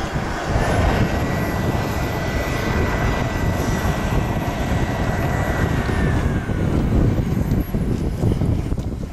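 Radio-controlled T-45 Goshawk model jet's engine in flight: a steady high whine over a loud low rumble, the whine dropping in pitch about six seconds in as the jet passes.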